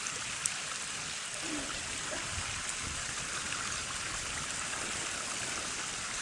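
Steady rush of flowing creek water, with a single small click about half a second in.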